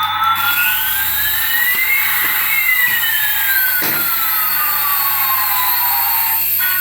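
A jet-like whine over a steady hiss. It rises in pitch for about two seconds, then falls slowly over the next four.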